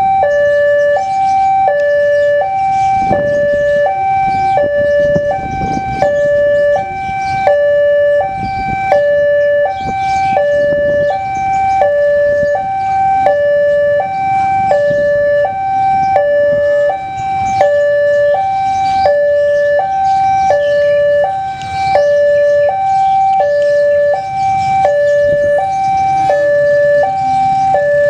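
Electronic railway level-crossing warning alarm sounding a steady two-tone alternation, high and low, about one cycle a second, signalling an approaching train. A low rumble of background noise runs beneath it.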